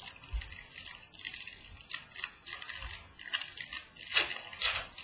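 Trading cards and their packaging being handled: a run of short, dry rustles, scrapes and slides, the loudest about four seconds in.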